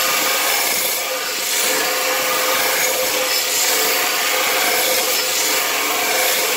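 Electric belt grinder's abrasive belt grinding the steel blade of a hand-forged Korean nadae, a steady harsh rasp over the machine's even hum. The rasp eases slightly a couple of times as the blade is shifted on the belt.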